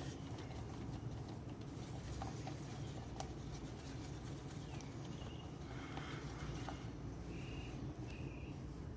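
Low, steady rumble of distant thunder, with a few faint scattered clicks and some short high chirps in the second half.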